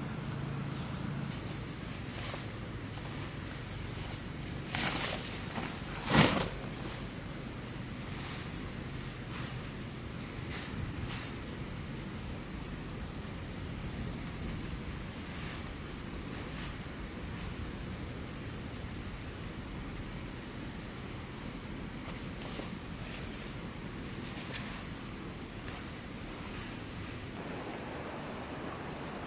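Insects droning: one steady high-pitched note throughout, with the faint clicks and rustle of handling camp gear. Two sharp knocks about five and six seconds in, the second the loudest.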